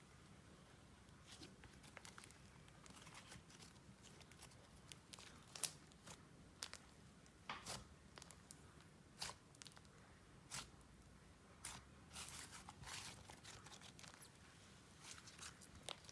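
A layered clay slime being squished and stretched by hand, giving faint, scattered sticky clicks and crackles, with a few sharper pops and a denser run of crackling about three quarters of the way through.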